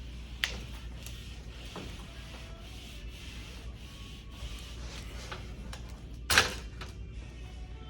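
Damp sponge wiping side to side over freshly hung mural wallpaper, cleaning off water-based paste in soft, repeated strokes. There is a small click about half a second in and a louder short knock about six seconds in.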